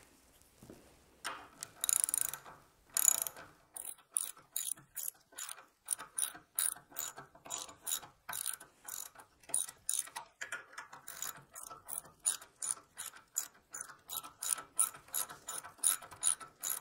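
Ratchet wrench with a 7/16-inch socket clicking as it backs nuts off the bolts, a steady run of short clicks about two to three a second, starting a little over a second in.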